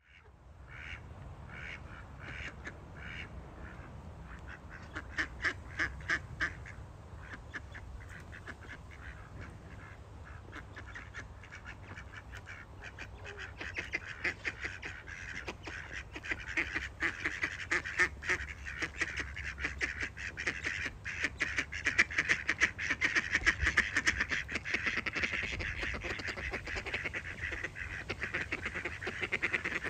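Ducks quacking: a few separate calls at first, then calls piling up from about halfway into a dense, nearly continuous chatter of many birds. A steady low rumble runs underneath.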